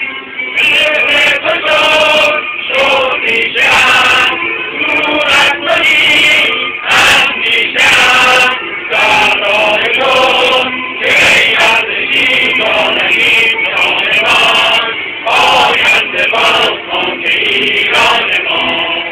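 A male voice and a chorus singing a Persian song, with bright struck notes throughout, likely from the santur.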